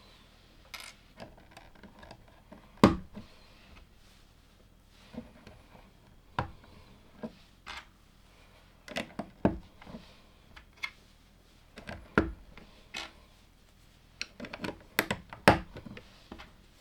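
LEGO plastic pieces clicking and knocking as they are handled and pressed together, a scatter of short sharp clicks with pauses between, the strongest about three seconds in and again around nine, twelve and fifteen seconds.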